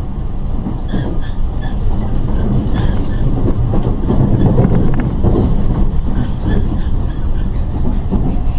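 East Rail line electric train running at speed, about 74 km/h: a steady, loud rumble of wheels on track and the running gear.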